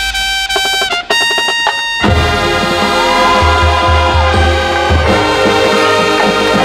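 High school marching band playing: held brass chords over percussion, with a short break about a second in, then the full band comes back in about two seconds in with low bass drum hits under the brass.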